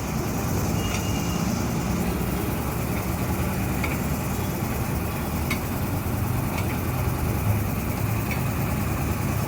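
Engine running steadily at idle, with a few faint light clicks scattered through.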